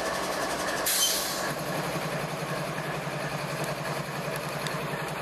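Diesel locomotive of a CSX freight train running as it approaches, with a low, even pulsing. A brief hiss comes about a second in.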